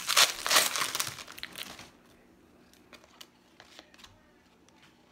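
Trading card pack wrapper crinkling as it is torn open and pulled off, for about the first two seconds. Then it goes quiet apart from a few faint ticks as the cards are handled.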